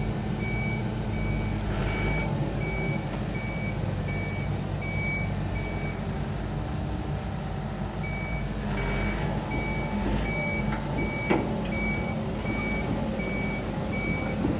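Excavator's diesel engine running steadily under a backup/travel alarm beeping in short even beeps, about two a second; the beeping stops for about two seconds partway through, then starts again.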